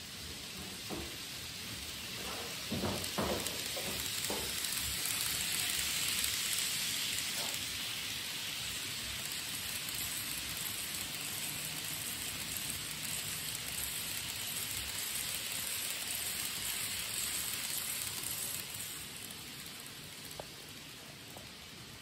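N gauge model train running along the layout track: a steady hissing whir that builds over the first few seconds and fades near the end, with a few light clicks about three seconds in.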